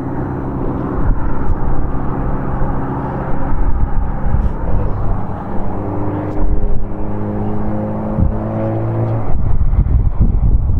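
Rolls-Royce RB211-524 turbofans of a Boeing 747-400 freighter on final approach: a steady drone with several held engine tones that shift in pitch about six and eight seconds in. Wind rumbles on the microphone throughout and takes over near the end as the engine tones drop away.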